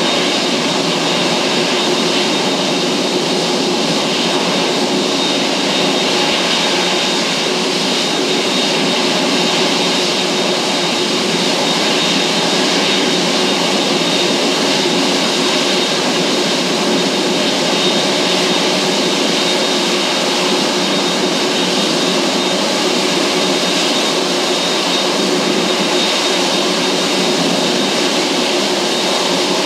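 Boeing 747-8's four GE GEnx-2B turbofan engines running while the jumbo jet taxis in: a steady, loud rush with a thin high whine held throughout.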